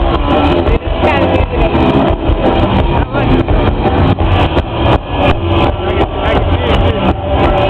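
Loud, distorted rock music with drums and guitar.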